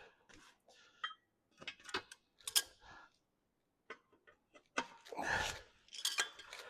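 Scattered light metallic clinks and taps as tools and small steel parts are handled while a hot rivet is readied for an angle-iron fender bracket.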